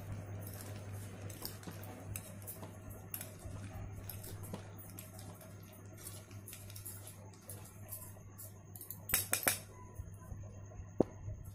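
Two metal forks stirring and tossing a boiled peanut mix in a ceramic bowl, with light clicks and scrapes against the bowl. A few louder clinks come about nine seconds in, and a single sharp ringing clink near the end.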